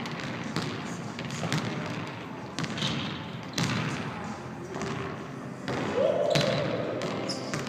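Basketball bouncing on a hardwood gym floor in several separate thuds as it is dribbled, with players' voices in the echoing gym.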